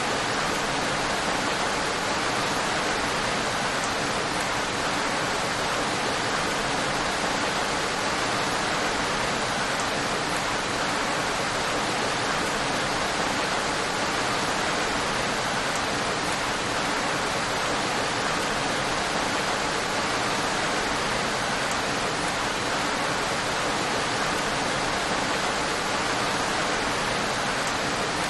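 Steady, even rain with no individual drops standing out.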